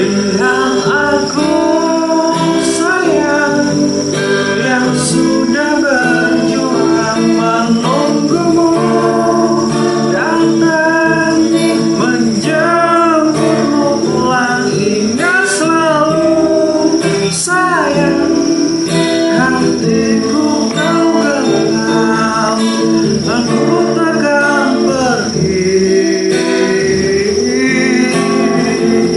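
Acoustic guitar strummed and picked, with a voice singing a melody that carries no clear words. A steady high cricket trill runs underneath.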